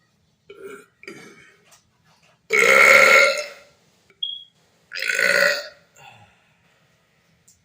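A man belching on purpose after gulping almond milk: two loud, long burps, the first about two and a half seconds in and the second about two seconds later, with a few smaller ones around them.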